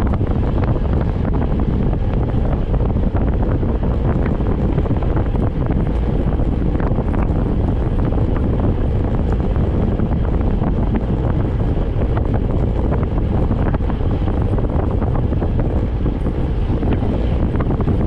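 Wind buffeting the microphone of a camera carried on a moving bicycle: a loud, steady low rumble throughout.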